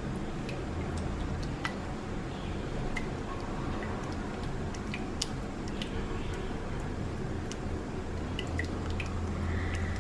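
Silicone spatula stirring and folding a thick, wet cheesecake filling in a glass bowl: soft squishing with scattered small clicks, over a steady low hum.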